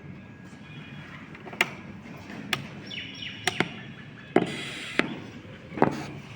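A series of sharp clicks and knocks at irregular intervals, with a short burst of hiss in the middle and faint high chirps.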